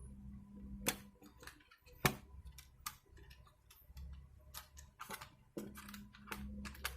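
Scattered light clicks and taps of an SSD being handled and fitted into a laptop's hard-drive bay, with a cluster of quicker clicks after about five seconds.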